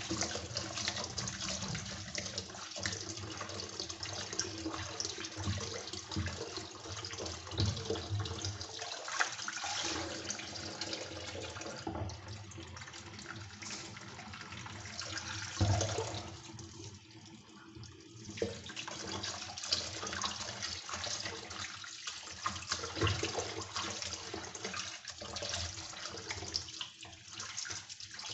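Tap water running and splashing as dirty canister-filter pads are rinsed under it, with a short quieter lull a little past halfway.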